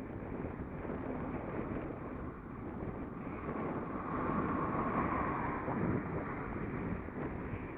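Wind rushing over a moving Contour Roam action camera's microphone, mixed with road noise. A car passes close alongside, loudest from about four to six seconds in.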